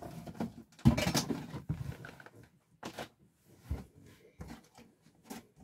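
Rustling and knocking of items being handled and pulled out of a shipping box, with the loudest clatter about a second in and a few smaller knocks after.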